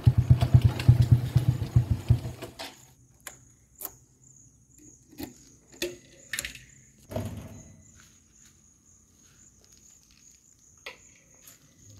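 Motorcycle engine idling with an even beat, switched off about two and a half seconds in. Then a few sharp clicks and knocks as the fuel-tank cap is unlocked with a key and opened, over a faint steady high-pitched tone.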